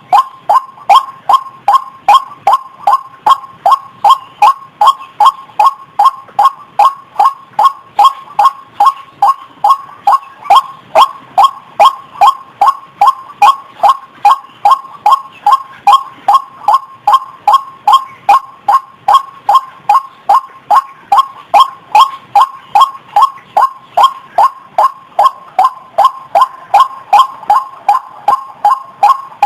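White-breasted waterhen (ruak-ruak) call played as a bird-luring recording: a long, even run of short, sharp notes, about two and a half a second, each dropping slightly in pitch.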